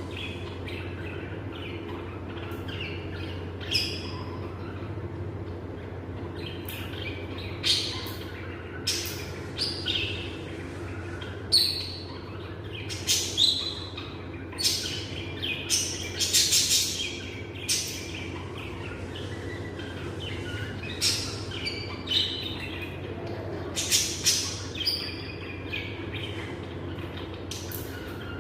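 Pet lovebirds chirping: short, shrill chirps and squeaks coming irregularly and in clusters, over a steady low hum.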